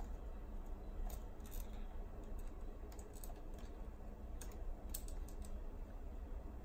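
Scattered light clicks and taps of a small Phillips screwdriver and tiny screws against a boombox's metal cassette-mechanism plate, over a steady low hum.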